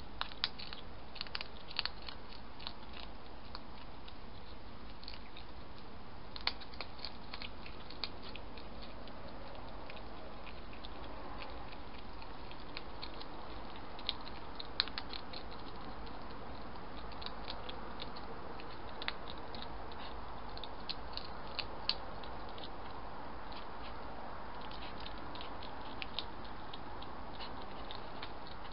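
Hedgehogs chewing and crunching food: irregular sharp clicks and crunches that come in clusters, over a steady hiss.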